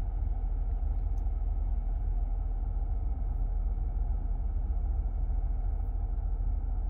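Steady low rumble of a car running, even and unchanging throughout.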